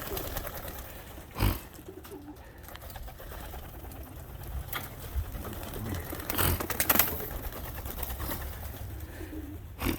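Young domestic pigeons cooing softly at the loft, with a few sharp claps about one and a half, six and a half and seven seconds in, the loudest near the end of that run.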